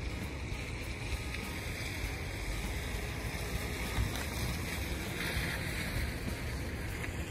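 Wind buffeting the phone's microphone outdoors: a steady low rumble with a hiss over it, with no distinct tones or events.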